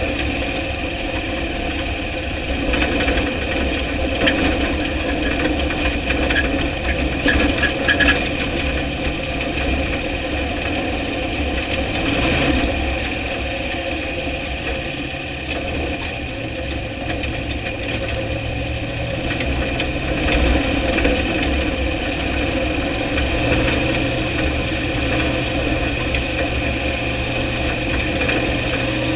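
Dirt-track race car engine running at a low, even speed, heard from inside the car, with small shifts in engine speed around the middle and again near the end.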